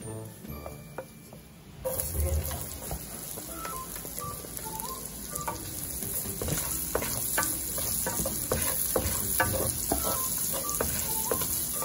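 Diced onion sizzling in hot fat in a nonstick pan while a wooden spatula stirs and scrapes it. The sizzle starts about two seconds in and holds steady, with scattered scrapes of the spatula against the pan.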